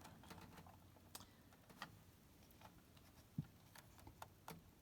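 Near silence: room tone with a few faint, irregular clicks, the most distinct one a little past the middle.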